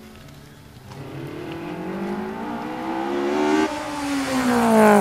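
A motor vehicle engine speeding up, its pitch rising for a few seconds, then dropping abruptly and falling away as it passes, growing louder toward the end.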